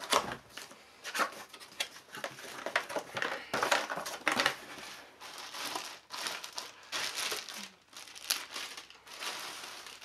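Packaging being unpacked by hand: irregular crinkling and rustling of a cardboard box, shredded-paper fill and a plastic bag.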